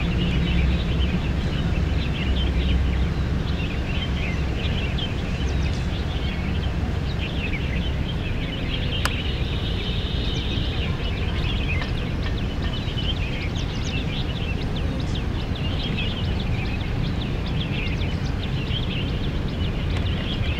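Open-air field ambience: a steady low rumble with many small birds chirping throughout, and one sharp click about nine seconds in.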